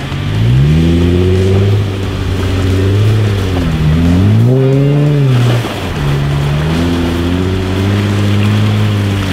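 Jeep Wrangler JK engine revving under load as it crawls through mud. The revs climb in the first second and hold, dip and surge again about halfway through, then settle lower.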